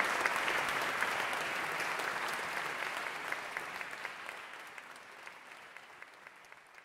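Audience applauding, a dense patter of clapping that fades steadily away towards the end.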